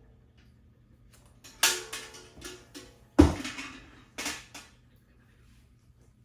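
Kitchen dishes and containers being handled: several knocks and clatters, some with a short ring, the loudest a heavy knock about three seconds in.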